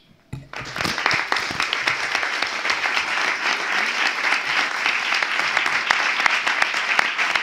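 Audience applauding. The applause starts about half a second in and holds steady.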